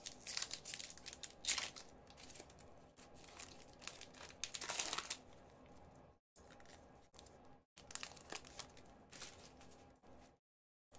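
Plastic wrapper of a hockey card pack crinkling and tearing as it is opened by hand, in several short bursts of rustling with brief pauses between.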